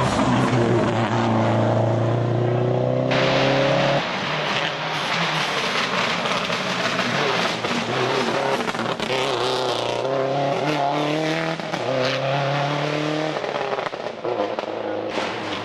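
Subaru Impreza WRX STi rally car's turbocharged flat-four engine revving hard under acceleration, its pitch climbing. The sound changes abruptly about four seconds in, and the engine note climbs again in rising steps in the second half.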